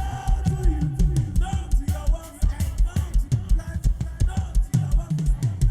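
Music driven by fast, steady drumming: rapid drum strikes over a pulsing low bass beat, with a few faint held melodic notes.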